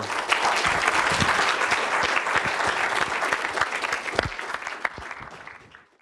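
Lecture-hall audience applauding: many hands clapping densely, dying away near the end.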